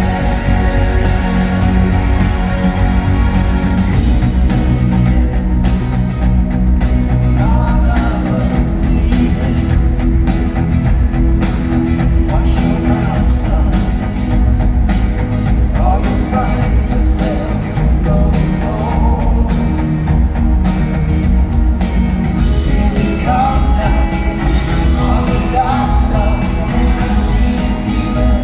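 Live pop-rock band playing at concert volume, with drums, bass and keyboards under sung lead and harmony vocals, heard through an arena PA from within the audience.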